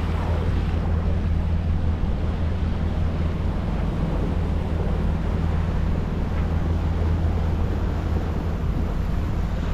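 A Catalina 380 sailboat's inboard diesel engine running steadily under way, a constant low drone, with a hiss of water and wind over it.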